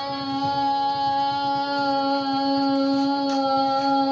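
A girl's voice holding one long, steady sung note into a handheld microphone.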